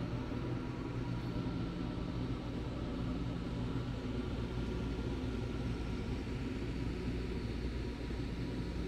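Scania R tractor unit's diesel engine idling, heard from inside the cab as a steady low hum.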